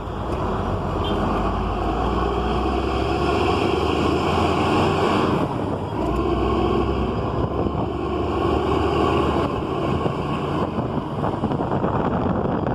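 Diesel engine of an Isuzu LV150 coach running steadily, its tone shifting briefly about five and a half and eleven seconds in.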